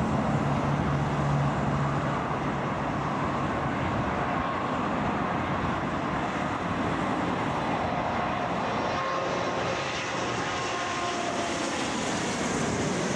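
Boeing 777 on final approach with its landing gear down, passing low overhead: a steady jet-engine roar with faint whining tones, growing brighter and more high-pitched near the end as the plane comes directly over.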